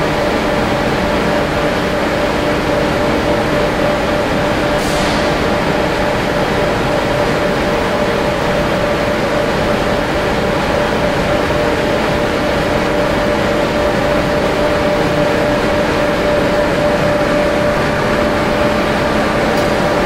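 Gas-fired crucible furnace burner running with a loud, steady rush and a constant hum underneath.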